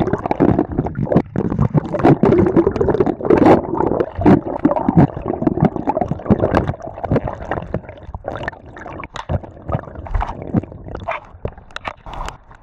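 Rainwater running in a street gutter, gurgling and splashing right against a camera microphone held in the flow, with many irregular clicks and splashes. It is loudest in the first half and grows quieter, with scattered clicks, over the last few seconds.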